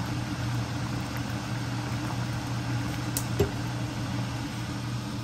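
Stovetop pot of mung bean and bitter melon soup bubbling at a rolling boil, over a steady low hum. A single small click sounds about three and a half seconds in.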